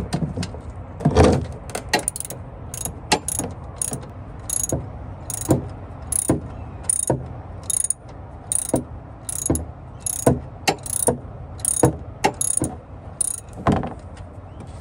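Socket ratchet clicking as a 17 mm oil drain plug is unscrewed from a BMW E36 oil pan: two heavy knocks near the start, then a long run of quick ratchet strokes, about two a second.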